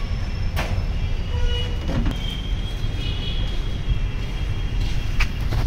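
Steady low rumble of motor vehicles, with a few sharp clicks and taps scattered through it.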